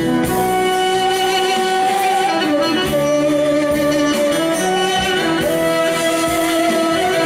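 Live Turkish folk music (türkü) with a band: long held melody notes that slide between pitches over plucked strings.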